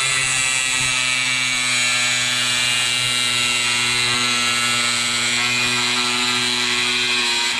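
Power tool running steadily as it cuts through a rusted steel padlock, a constant motor hum with a grinding hiss over it, stopping just before the end.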